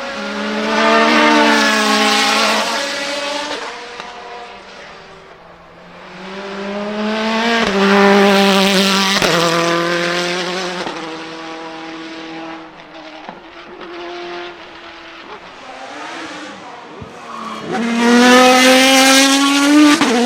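Naturally aspirated GT1 racing car engine accelerating hard three times, its note climbing and breaking sharply at gear changes, with quieter stretches off the throttle between.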